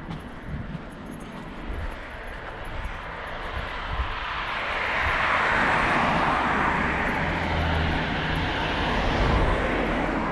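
Airplane flying over: a rushing engine noise that swells about four seconds in, holds for several seconds, then slowly fades.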